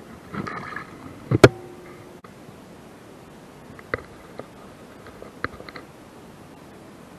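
Handling noise right against the camera's microphone: a loud knock about a second and a half in, then faint scattered clicks and rustles as hands work fishing line in front of the lens.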